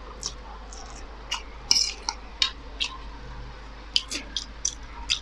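Close-up mouth sounds of eating noodles: a dozen or so short, wet smacks and slurps at irregular intervals as a forkful is sucked in and chewed.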